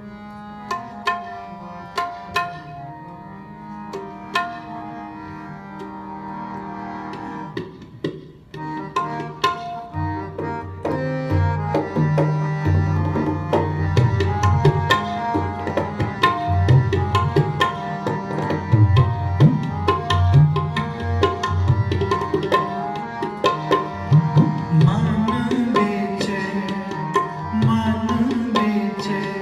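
Harmonium and tabla playing the instrumental opening of a kirtan shabad. At first the harmonium holds a steady melody over sparse tabla strokes. About ten seconds in the tabla comes in fully with a quick, dense rhythm and gliding bass-drum strokes, and the music gets louder.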